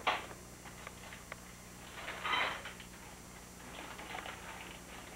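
Gift wrapping paper rustling and crinkling in short bursts as a present is unwrapped, the loudest burst about two seconds in, over a faint steady hum.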